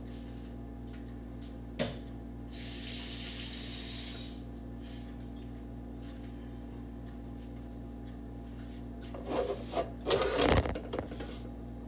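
A kitchen tap runs briefly about three seconds in, over a steady low hum. Near the end come close knocks and rustling as hands work at the enamel roasting pan.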